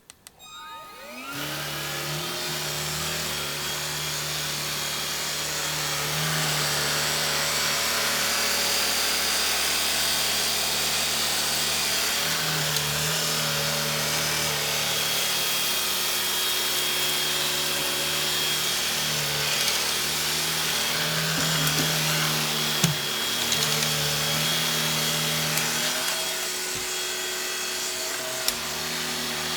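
Iris Ohyama cordless vacuum cleaner with a rotating brush head switched on with a click, its motor spinning up with a rising whine, then running steadily while sucking up shredded paper, with a few sharp clicks along the way.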